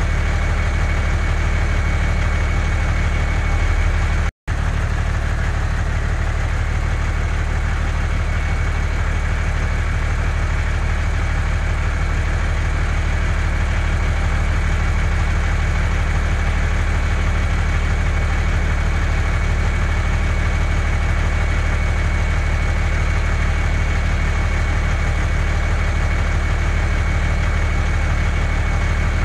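A steady, unchanging truck engine idling sound with a low hum and a thin constant whine. It cuts out for an instant about four seconds in.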